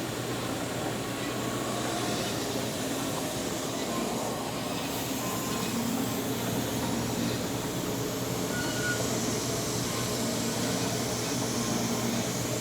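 Wellsaw 1270 horizontal band saw running, a steady machine whir over a constant low electric hum.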